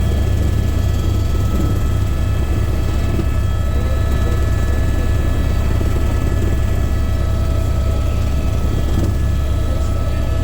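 Helicopter in flight, heard from on board: a steady, heavy low rumble of rotor and engine with several faint steady whining tones above it.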